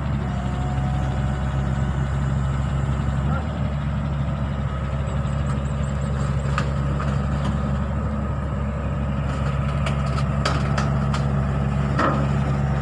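Hitachi Zaxis 48U mini excavator's diesel engine running steadily, with a few sharp knocks of metal in the later part.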